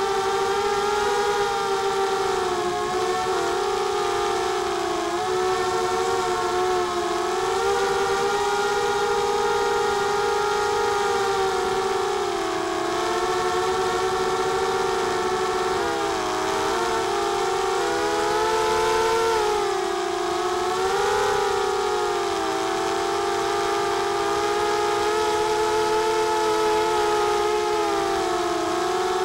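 Mini FPV racing quadcopter's brushless motors and propellers whining continuously, several close tones rising and falling together as the throttle changes.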